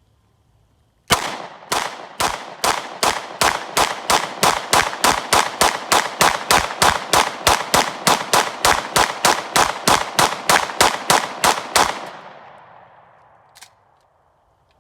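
Glock 19 9mm pistol fired semi-automatically in a steady string of about three shots a second for some eleven seconds, emptying a 33-round extended magazine, with the echo fading after the last shot. The unbroken rhythm shows the magazine feeding every round without a stoppage.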